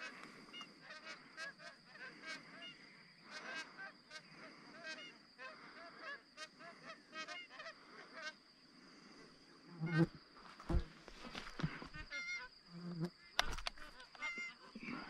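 A flock of magpie geese calling, many honks repeating and overlapping. A few sharp knocks and thumps come in about two-thirds of the way through.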